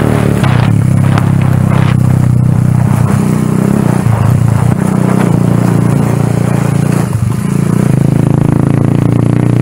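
Motorcycle engine running steadily as the bike rides along, easing off briefly about seven seconds in before picking up again.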